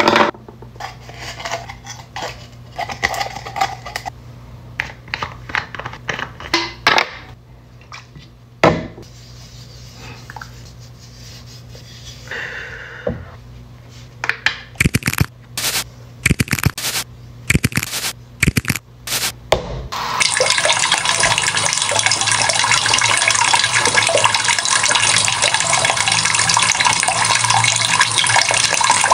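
Scattered clicks and knocks as skin-care containers, a jar and a squeeze tube, are handled at a bathroom sink. About twenty seconds in, the sink's tap turns on and runs steadily into the basin.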